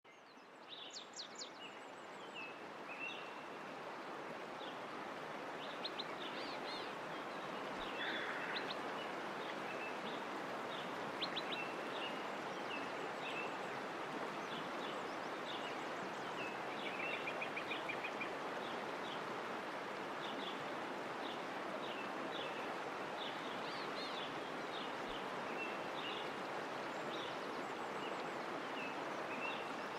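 Steady rush of running water with birds chirping and trilling over it. It fades in over the first few seconds.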